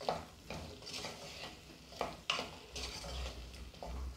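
Wooden spatula stirring and scraping potato, shallot and onion pieces around a pot as they sauté in hot coconut oil, in a series of short strokes over a light frying sizzle.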